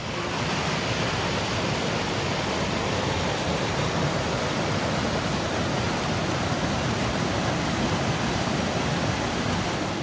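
Steady rush of a fast mountain creek tumbling down a steep boulder cascade in whitewater.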